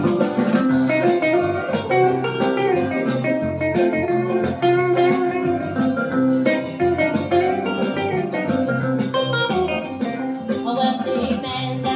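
Recorded 1970s gospel music: an instrumental passage with a plucked guitar lead over a bass line and a steady beat.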